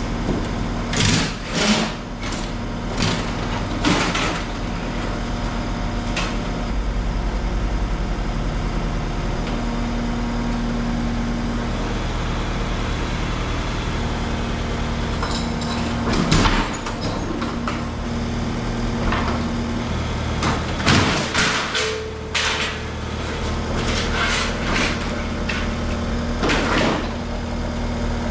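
An engine idling steadily under a series of sharp metallic knocks and clanks from work on a steel garage door panel and its track, a few in the first seconds and a louder cluster past the middle.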